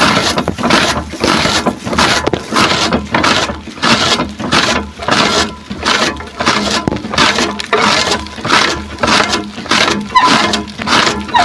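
Grass being cut in a steady run of crisp, crunching strokes, about two to three a second.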